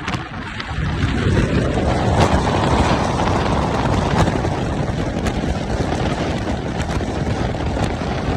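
Strong coastal wind buffeting the microphone: a loud, low rushing noise that dips briefly, then swells into a sustained gust about a second in.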